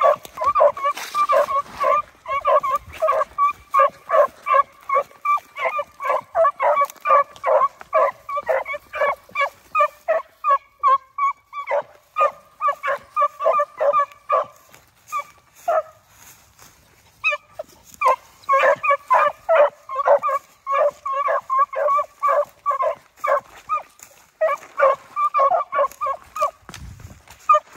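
Rabbit-hunting beagles giving tongue on a rabbit track: rapid high yelping, several yelps a second, with a short break a little past halfway.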